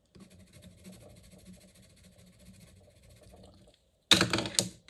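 A Caran d'Ache Supracolor watercolour pencil scribbling on paper in quick, faint strokes. About four seconds in comes a short, loud clatter as the pencil is put back among the others in the metal pencil tin.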